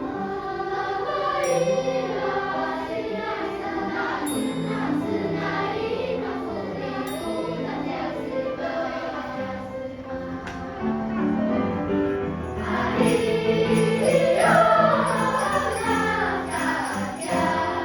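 A choir singing with musical accompaniment. About thirteen seconds in, jingle bells join in, shaking in a quick rhythm.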